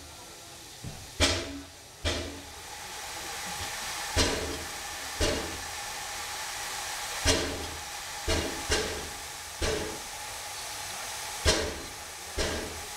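Steam hissing steadily from the Climax geared steam locomotive, growing louder a couple of seconds in. About ten sharp knocks come at uneven intervals over it.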